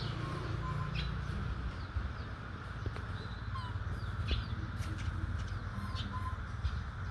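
Outdoor ambience with a steady low rumble, over which small birds give scattered short high chirps and a few brief whistled notes every second or two.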